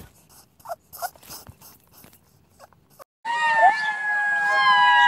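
Faint short clicks and ticks, then about three seconds in several animals start howling together: long overlapping howls held and sliding slowly down in pitch, with brief yipping dips.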